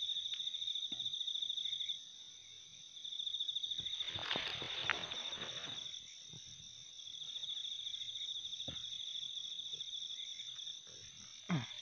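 Night insects trilling in a high-pitched pulsing chorus, in bouts of a few seconds with short pauses between. A brief rustling noise comes about four seconds in.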